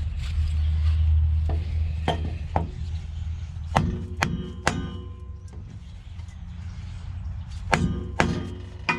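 Hammer blows on a block held against an exhaust pipe, driving the pipe into place: sharp strikes in quick clusters of two or three, some leaving a brief metallic ring, with a pause of about two seconds before the last few blows. A steady low hum runs underneath.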